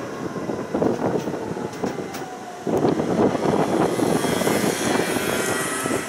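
A tram running, heard from inside the car: a steady rumble and rattle of wheels on track with a faint falling motor whine. It gets louder about two and a half seconds in.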